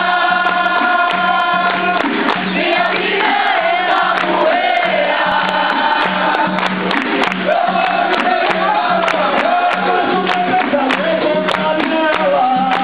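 Capoeira roda music: a group of voices singing over a rhythmic percussion beat, with a pulsing low tone and frequent sharp clicks and claps.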